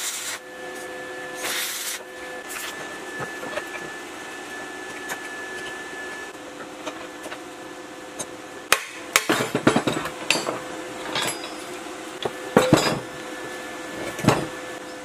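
Hammer striking a steel chisel held against the metal base of a cut-off saw: a run of sharp metallic blows in the second half, some in quick clusters. Before the blows there are scattered lighter clicks and a stretch of hiss.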